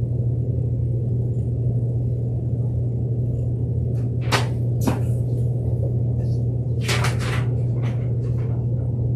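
Steady low hum, with a few brief clicks about halfway through and again about two-thirds of the way in.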